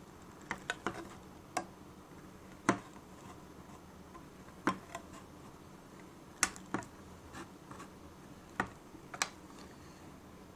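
Swiss Army knife hook-type can opener worked around the lid of a tin can: about a dozen sharp metallic clicks at irregular intervals, each a stroke of the blade piercing and cutting the lid.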